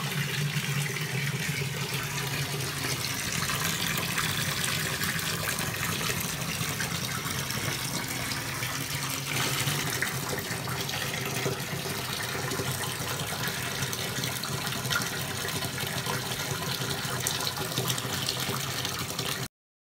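Bathtub faucet running, a steady stream of water filling the tub and splashing onto foamy detergent suds. It cuts off abruptly near the end.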